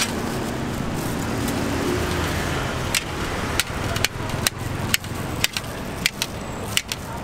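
Knife chopping a ripe papaya into chunks over a stainless steel tray: a run of sharp clicks, about two a second, starting about three seconds in. Steady street traffic noise runs underneath.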